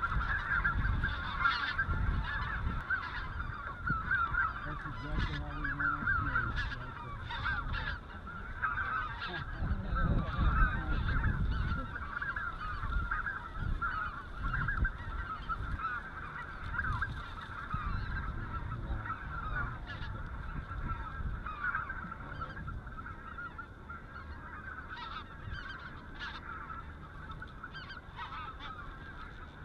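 Snow geese calling: a dense, continuous chorus of high, chattering honks, with gusts of wind rumbling on the microphone, strongest about ten seconds in.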